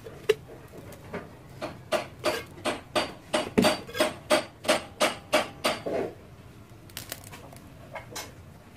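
Cracked pieces of a ceramic vase's rim being worked back and forth and broken off by hand: a sharp click, then a regular run of about a dozen short scraping clicks, roughly three a second, as the broken edges grind together, and a few softer clicks near the end.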